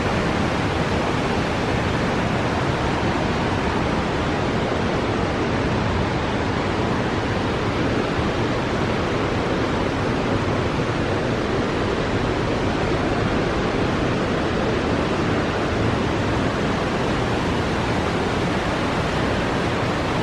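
Steady loud rush of the Chattahoochee River's water over rapids.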